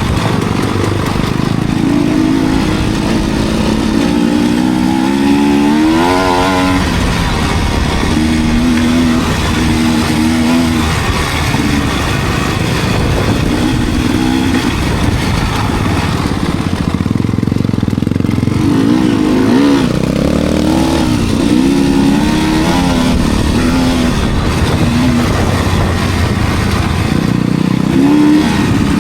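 Enduro dirt bike engine running under riding load, its pitch rising and falling with the throttle, with quick revs about six seconds in and again around twenty seconds in.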